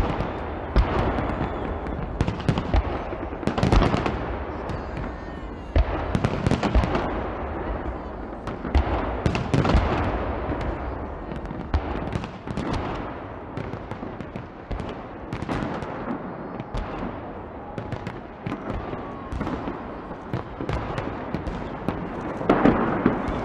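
Fireworks salute: aerial shells bursting in quick succession, a dense run of bangs with crackling over a continuous low rumble. The heaviest cluster of bangs comes near the end.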